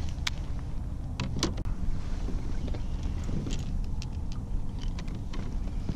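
Handling noise from fishing gear: scattered light clicks and knocks as a landing net and rod and reel are handled with a freshly caught speckled trout in the net, over a steady low rumble.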